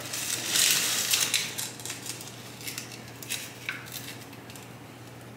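Rustling of a trailing plant's stems and leaves as its pot is slid out from a low shelf, loudest in the first second or so, followed by a few light clicks and scrapes of the pot against the shelf.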